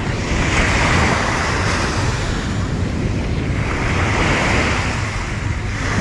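Sea waves breaking and washing up the beach, swelling twice in a hissing surge, with wind buffeting the microphone as a steady low rumble.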